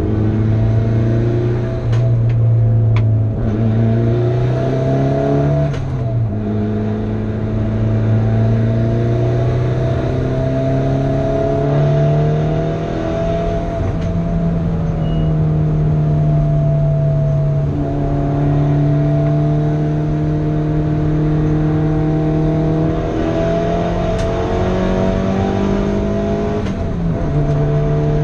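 A car's engine heard from inside the cabin while it is driven hard on a race track. It climbs in pitch and drops at an upshift about six seconds in, holds a steady note through the middle, then rises again to another upshift near the end.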